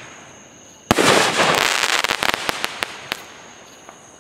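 A firework shell bursts with a sharp bang about a second in, followed by about two seconds of crackling pops that thin out and stop.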